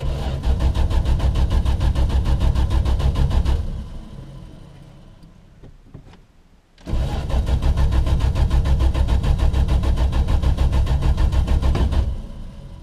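1974 Valiant's starter cranking the engine in two long bursts, about four and five seconds, with a short pause between; the engine turns over in an even rhythm without catching. This is a cold start after months of sitting, and the owner thinks it sounds like it isn't getting fuel.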